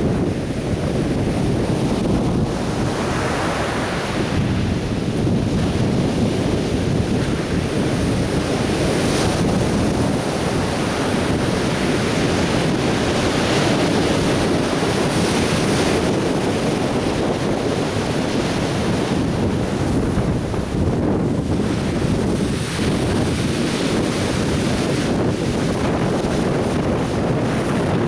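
Atlantic Ocean surf washing onto a beach: a continuous rushing wash of breaking waves that swells and eases slightly.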